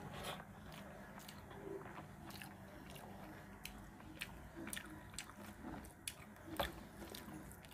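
A person chewing a mouthful of rice eaten by hand, with many short sharp mouth clicks; the loudest click comes about six and a half seconds in.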